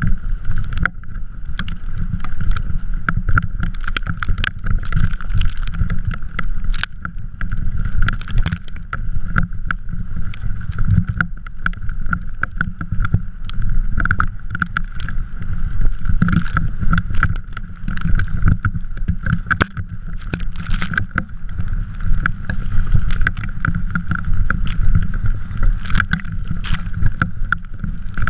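Drift trike rolling and sliding over snow, a continuous low rumble with a steady mid-pitched whirr and frequent knocks and rattles from bumps, picked up by a GoPro riding on the trike with wind buffeting its microphone.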